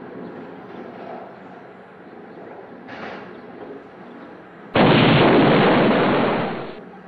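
A sudden loud explosion-like blast of noise about two-thirds of the way in, lasting about two seconds and then fading out, over faint wind and lake ambience.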